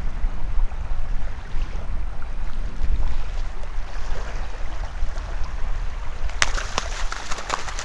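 Wind buffeting the microphone over small waves lapping on a sandy shoreline. A few sharp clicks come about six and a half seconds in.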